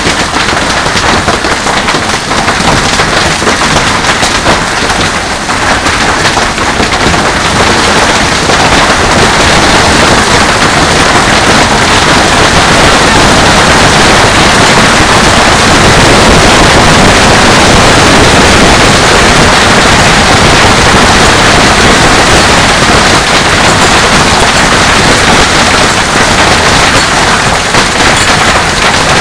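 Heavy hail pelting hard surfaces: a loud, dense clatter of countless rapid stone impacts, growing heavier about eight seconds in and staying heavy.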